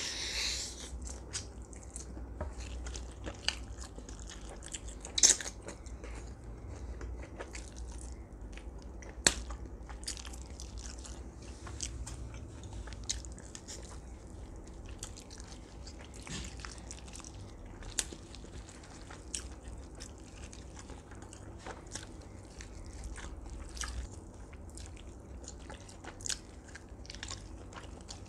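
A person eating roast duck, biting meat off a piece on the bone and chewing it, with many short clicks. Two louder clicks come about five and nine seconds in, over a low steady hum.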